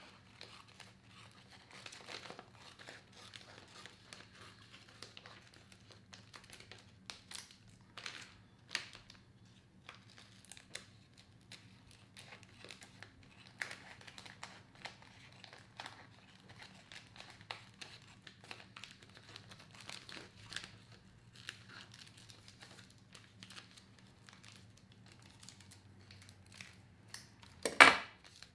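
Irregular crinkling, tearing and scraping noises of hand work on a leather boot, over a faint steady low hum. A single sharp, much louder crack comes near the end.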